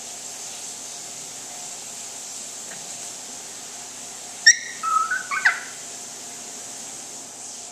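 African grey parrot giving a sharp click, then a quick run of short whistled chirps about four and a half seconds in.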